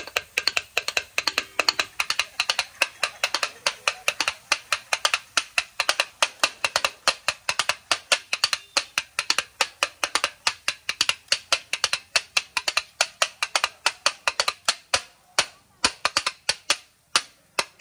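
Two metal spatula blades clanging rapidly on a large flat iron griddle as egg kothu parotta is chopped and mixed, about five strikes a second in a steady rhythm that spaces out slightly near the end.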